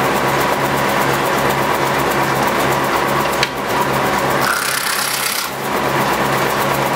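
1930s Osbyverken side planer, a barrel-stave machine with a large spinning disc cutter, planing the edge of a wooden stave into an oval shape. A loud, dense rasping cut over the steady hum of the running machine and its belt drive.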